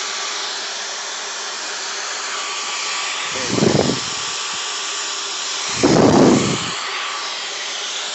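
Dyson V15 Detect cordless stick vacuum running steadily with a high-pitched rushing hum, with two brief louder, deeper rushes about three and a half and six seconds in as the nozzle is worked against surfaces.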